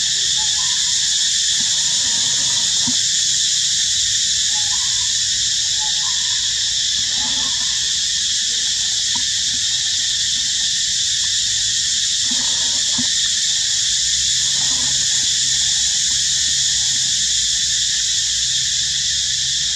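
A steady high-pitched drone with faint, short animal calls now and then.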